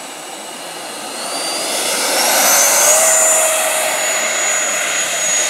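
Twin 90 mm Wemotec electric ducted fans of a Freewing Eurofighter Typhoon RC jet on 8S power, spooling up to full throttle for the takeoff run. A rushing whine that climbs in pitch and loudness over the first three seconds, then holds steady and high.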